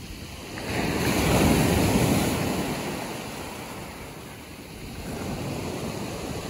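Surf breaking and washing up the beach: one wave swells about a second in and dies away over the next few seconds, and another builds near the end.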